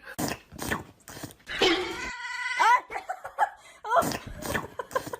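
A dog whimpering and yipping in a string of short calls, a few of them sliding in pitch.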